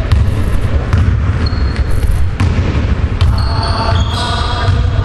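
Basketball bouncing on a hardwood gym floor, about once a second, with a few short high sneaker squeaks, all over a steady low rumble.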